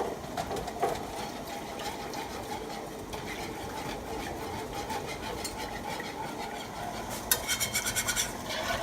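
Heavy cream going into a pan of roux and being stirred, a steady low cooking noise. Near the end comes a quick run of clicking scrapes from a utensil against the nonstick pan.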